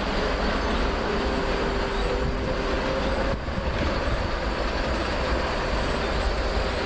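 Train running past on the rails: a steady, dense rush of wheel and rail noise, with a faint held whine on top.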